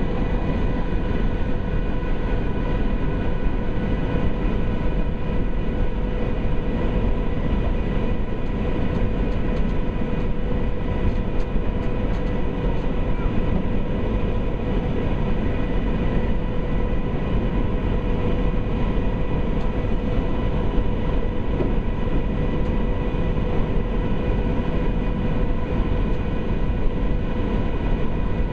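High-speed catamaran ferry under way, heard from the open deck: a steady machinery drone with a constant hum in it, over a heavy rushing of wind and water.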